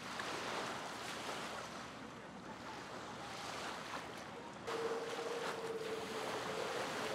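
Wind on the microphone over choppy water. About two-thirds through, a cut brings a louder steady hum of a boat's outboard motor running, with wind and water noise beneath it.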